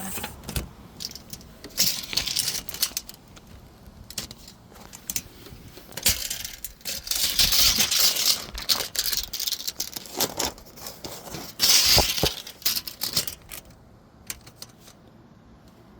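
Steel tape measure being pulled out and let back in: metallic rattling and scraping in several irregular bursts with sharp clicks, dying down near the end.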